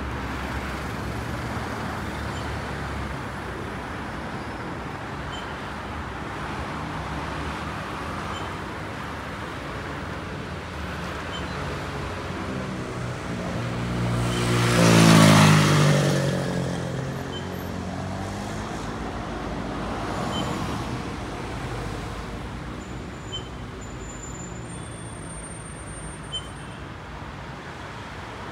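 City street traffic: a steady hum of cars going by, with one car passing close about halfway through, the loudest moment, its engine note dropping in pitch as it goes past.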